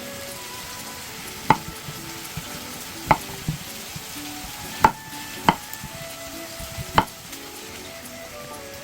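Knife chopping on a cutting board: about six separate, unhurried strikes, roughly a second or so apart, over faint background music.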